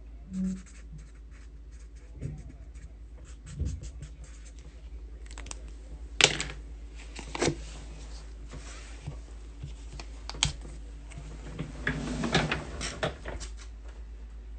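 Typing on a computer keyboard: a quick run of key clicks, then a few louder separate knocks and clatters.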